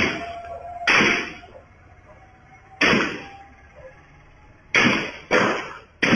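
Gunshots from an assault rifle, as picked up by a CCTV camera's microphone: six single shots at uneven intervals, each ringing briefly with echo. Two come close together about five seconds in.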